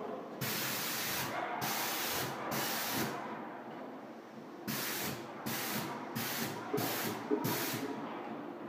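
Sprayplast plaster spray gun on an extension pole hissing in repeated bursts as the trigger is pulled and released: three bursts of under a second in the first three seconds, then five shorter bursts in quick succession after a pause.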